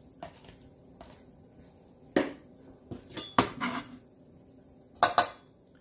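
Chef's knife clacking and scraping on a plastic cutting board as chopped peppers are swept off it, with irregular sharp knocks, the loudest about two, three and a half and five seconds in.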